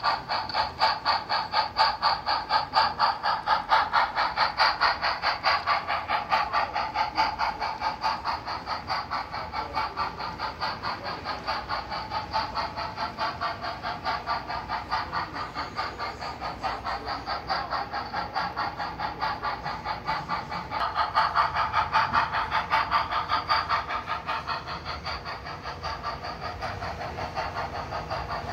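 Sound-equipped HO-scale model of Frisco steam locomotive #1630 running, its onboard speaker playing a steady rhythm of steam chuffs. The chuffing swells louder for a few seconds about three-quarters of the way through.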